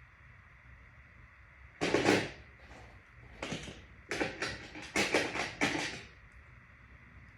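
A run of short scraping and rustling handling noises, about half a dozen in quick succession between two and six seconds in, the first the loudest.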